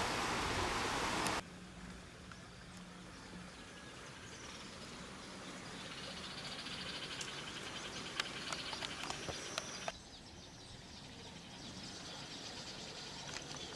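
A steady rush of noise cuts off suddenly about a second and a half in. It leaves faint outdoor ambience of insects and birds chirping, with a few scattered clicks.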